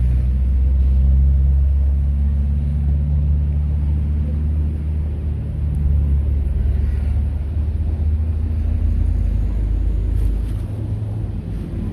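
A large engine running with a steady low hum, its lowest part fading near the end.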